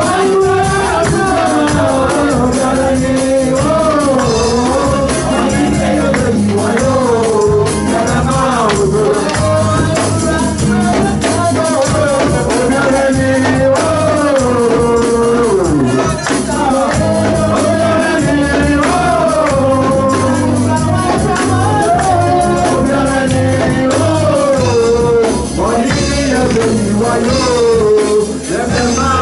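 Live church worship music: a woman singing lead into a microphone over a band with drums and a steady beat, with percussion rattling in time.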